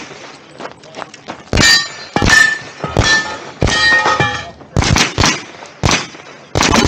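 A string of gunshots about half a second to a second apart, fired at steel targets. The first four shots are each followed by a metallic ring of a steel plate being hit.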